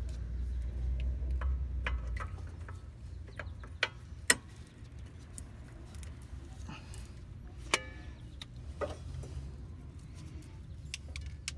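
Scattered metal clicks and clinks as rear disc brake pads are seated in the caliper bracket and the caliper is handled over them. The sharpest come around four and eight seconds in, some with a brief metallic ring, and a low rumble fills the first two seconds.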